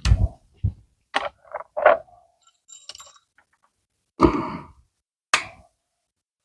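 Scattered knocks and clicks of hand tools and trim parts being worked loose in a car interior, with a brief metallic clink about three seconds in; the loudest knocks come near the end.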